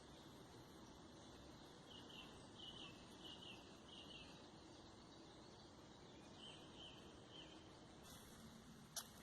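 Quiet forest ambience with a bird giving a run of short chirps, about five in two seconds, a few more faint ones later, and a single sharp click near the end.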